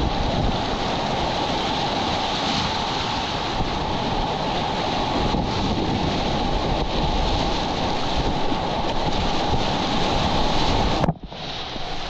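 Rushing whitewater rapids, a steady loud wash of water mixed with wind buffeting the microphone. The sound drops out abruptly for a moment about a second before the end, then comes back a little quieter.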